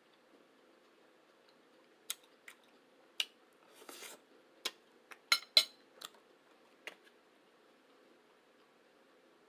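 Cutlery clicking and clinking against a plate while eating, about ten sharp strikes spread over several seconds, the loudest in a quick cluster near the middle, with a brief scrape just before it.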